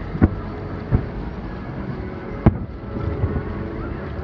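Distant fireworks going off over the sea: three sharp bangs, the loudest about two and a half seconds in, over steady background noise.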